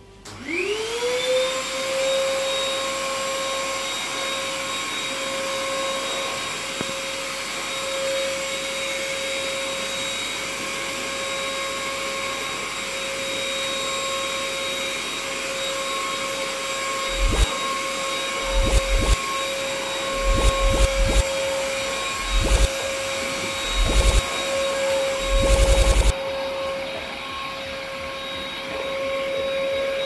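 Denpoo HR-8003 vacuum cleaner switched on, its motor spinning up in a rising whine within about a second, then running steadily with a high whine as the brush nozzle works a coarse carpet. In the second half come irregular bursts of knocking and rattling.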